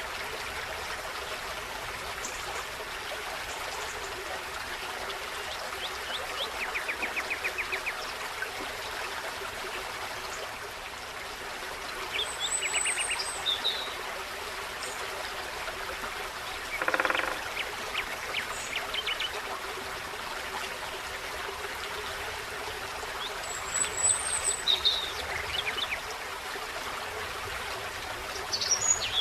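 Forest stream running steadily, with songbirds calling now and then over it: a fast trill about seven seconds in, high chirps around twelve and twenty-four seconds, and a short louder call about seventeen seconds in.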